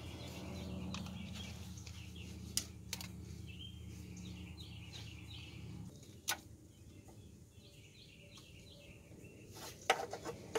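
A few sharp clicks and taps of a metal hook tool working at a sensor connector under a car, with a cluster of clicks near the end. Birds chirp faintly in the background, and a low steady hum stops about six seconds in.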